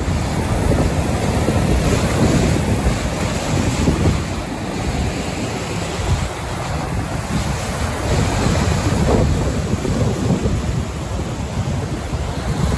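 Rough lake waves surging and breaking on shore, with strong wind buffeting the microphone in a steady low rumble.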